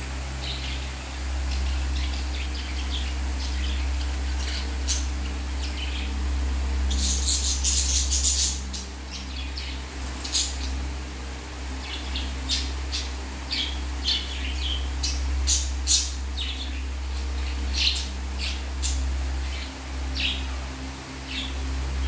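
Several budgerigars chirping and chattering, short high calls scattered throughout with a dense burst of chatter about seven seconds in. A steady low hum runs underneath.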